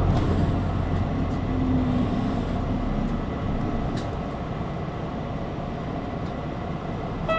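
Yutoku Bus route bus heard from inside the cabin: engine and road noise, the deep engine rumble dropping away about three seconds in and the overall sound easing off.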